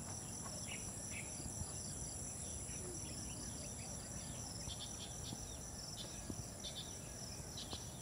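Insects chirring in a steady, high-pitched drone, with a few short chirps scattered through it, over quiet outdoor ambience.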